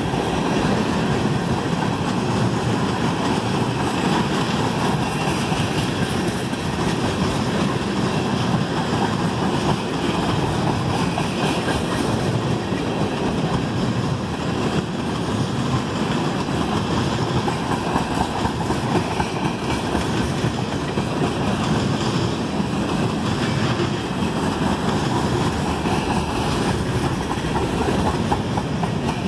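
Freight train of tank cars rolling slowly past, a steady rumble and clatter of steel wheels on the rails.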